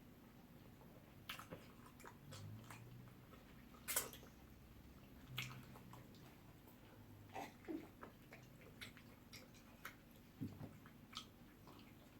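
Faint eating sounds from ogbono soup with pounded yam being eaten: scattered wet lip smacks, clicks and chewing, the loudest smack about four seconds in, with a couple of brief low hums.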